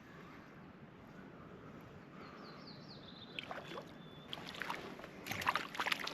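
Water splashing and sloshing at the lake's edge, irregular and growing louder over the last couple of seconds, after a brief run of high, falling chirps a little before the middle.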